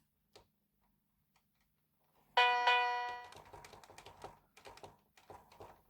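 Kids' electronic keyboard sounding two quick chiming electronic tones, a ding-dong, about two seconds in, fading over about a second, followed by faint clicks of its plastic buttons being pressed.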